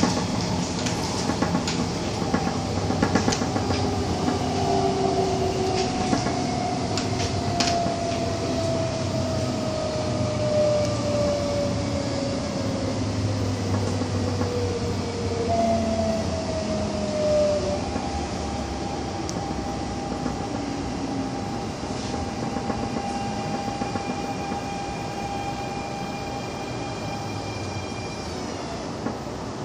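MTR Tung Chung Line A-Train running, heard from inside the car: steady wheel-on-rail rumble with the electric traction whine gliding down in pitch. In the second half a set of higher steady tones dips near the end as the train slows for the next station.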